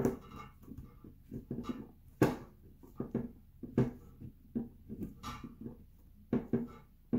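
Scattered light knocks, clicks and rubbing as gloved hands handle an open Honda OBD1 ECU and press on the plug-in BMulator board to check that it is seated in its socket.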